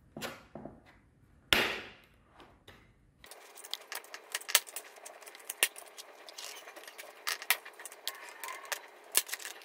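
A flat screwdriver pries and scrapes around the plastic power base of a Philips HD9357 electric kettle as its snap-fit cover is worked loose. It is heard as a string of sharp clicks and scrapes, with a louder scraping rush about one and a half seconds in.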